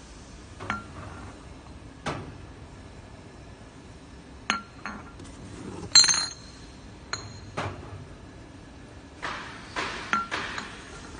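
Amber glass bottles clinking and knocking against one another in a cardboard box, a dozen or so irregular clinks. The loudest comes about six seconds in, with a brief glassy ring.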